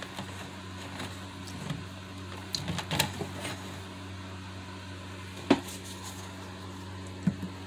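Scattered light knocks and clicks from a phone being handled and brushed against clothing, the loudest about five and a half seconds in, over a steady low hum.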